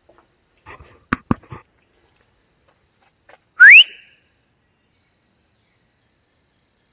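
A person gives one short, loud, rising whistle to call a dog, about three and a half seconds in. Two sharp clicks come just after a second in.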